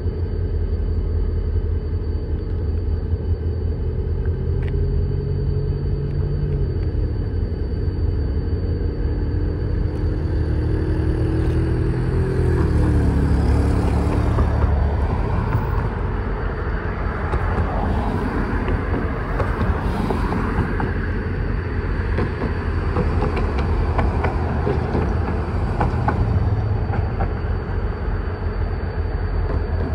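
Diesel locomotive approaching through a rail yard, its engine rumbling steadily, with the engine pitch shifting up and down several times in the first half. From about ten seconds in, a rougher, rushing noise builds over the rumble.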